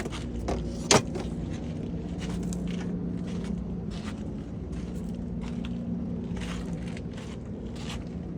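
Tool being put away: a sharp click about a second in, then scattered clicks and knocks of handling, over a steady low hum.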